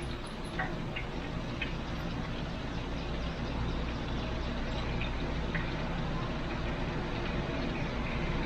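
Steady low hum with an even hiss, like a kitchen appliance running, with a few faint clicks.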